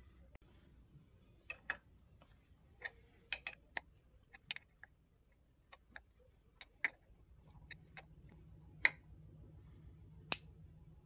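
Scattered sharp metallic clicks and taps from a wrench working a lathe chuck, tightening its jaws onto a wooden blank.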